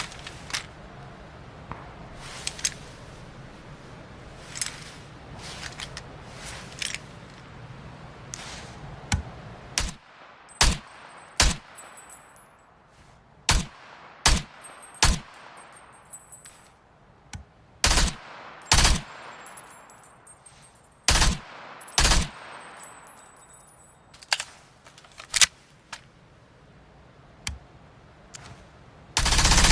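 MP5K submachine gun firing single shots and short bursts, spaced irregularly about a second or more apart, then a longer burst near the end.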